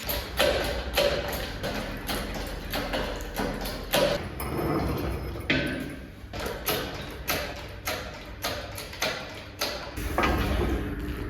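Irregular knocks and clanks of metal being handled and struck, a few each second, some with a short ringing ping.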